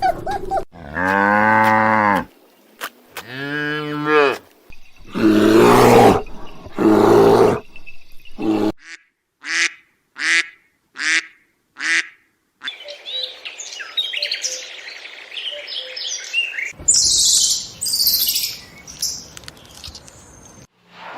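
A run of farm-animal calls. First come several low, drawn-out calls about a second or more long each. Then come five short chirps at about two a second, and near the end high bird chirping over a rustling background.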